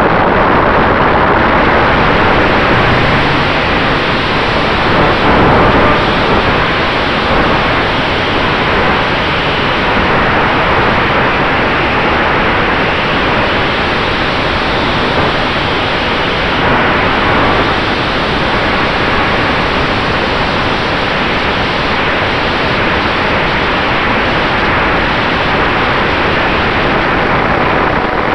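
Steady loud rush of wind and propeller noise on the onboard camera of an electric radio-controlled P-47 warbird, its brushless motor at high throttle, with a faint steady whine underneath.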